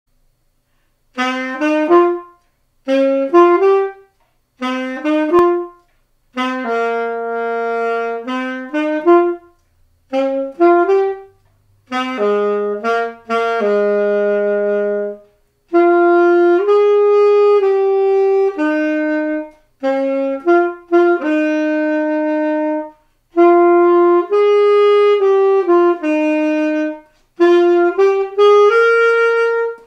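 Alto saxophone playing a simple solo tune with no accompaniment, in short phrases broken by brief rests. The first phrases are quick notes leaping upward; later phrases hold longer notes.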